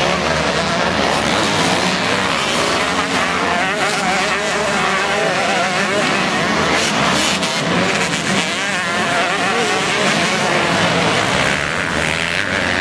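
Several motocross bikes' engines revving and shifting as they race around a dirt track. Many engine notes overlap, rising and falling in pitch.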